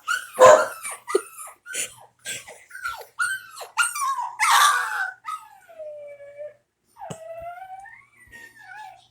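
Puppy crying: a quick run of short, high yelping cries, each dropping in pitch, followed in the second half by a few longer drawn-out whines.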